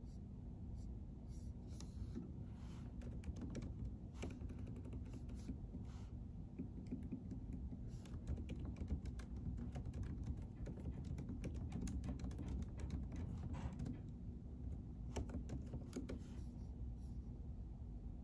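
Typing on a computer keyboard: quick runs of keystroke clicks with short pauses, busiest in the middle, over a low steady room hum.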